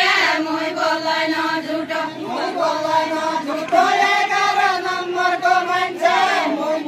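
Several voices singing a Nepali Deuda folk song together without instruments, in long held notes that slide between pitches, with short breaks between phrases.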